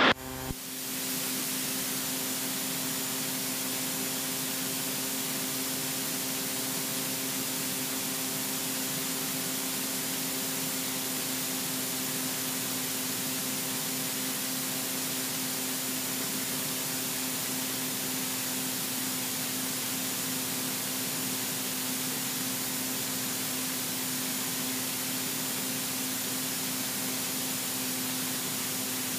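Robin DR400 light aircraft at full power for take-off: a steady hiss with a steady droning hum underneath, unchanging through the take-off roll and lift-off.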